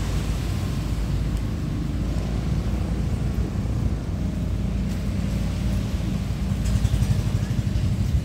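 A boat engine running with a steady low drone that gets a little louder near the end.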